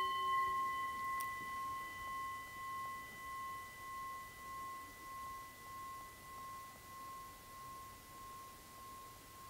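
Japanese gong, struck just before, ringing on and slowly dying away: one clear tone that swells and fades in a slow even pulse, a little under twice a second, its higher overtones gone after the first second or so. It is rung to open a collective pause of stillness.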